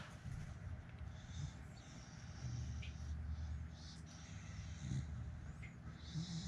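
A hand rubbing and massaging a beagle's head and ear fur, soft rubbing strokes coming about once a second.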